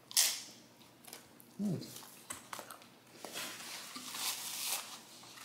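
A bite into a crisp thin-crust flatbread pizza right at the start, then chewing and a short hum. In the second half a paper napkin crinkles as it is handled.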